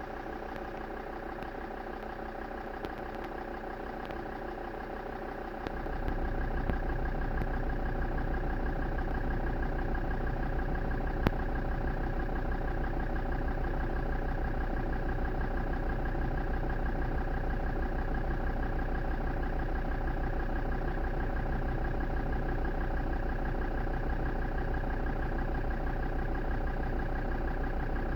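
Land Rover Defender Td5's five-cylinder turbodiesel idling roughly, a steady diesel chug that grows louder about six seconds in, with one sharp click near the middle.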